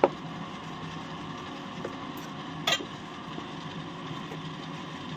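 Wooden spoon stirring thick mango pulp into a cornflour-and-milk mixture in a metal pot, with a few light knocks of the spoon against the pot, the clearest about two and a half seconds in, over a faint steady hiss.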